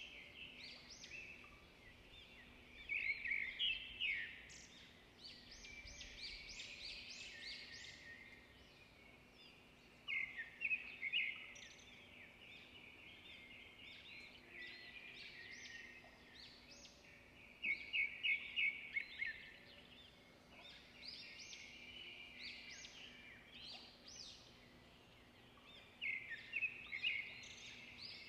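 Birdsong: bursts of rapid chirping and trilling that come back about every seven or eight seconds, over a faint steady hum.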